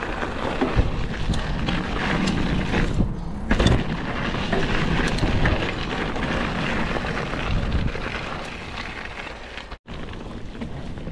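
Mountain bike descending a dirt trail: wind rumbling on the on-board microphone, mixed with tyres rolling over dirt and leaf litter and knocks as the bike jolts over bumps. The sound cuts out for an instant near the end.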